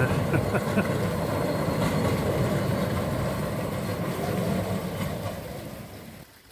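A small tourist train running past, a steady noise from its engine and wheels that fades out near the end.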